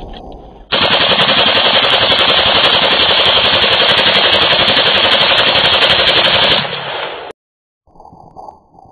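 AK-47 rifle in 7.62×39 mm firing fully automatic: one long unbroken burst of rapid, evenly spaced shots starting about a second in and lasting about six seconds, then stopping suddenly.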